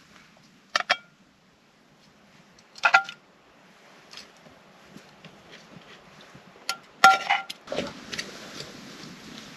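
Metal camp cookware clinking: a sharp knock with a short ring about a second in, a louder one near three seconds, and a quick run of clinks around seven seconds, followed by rustling.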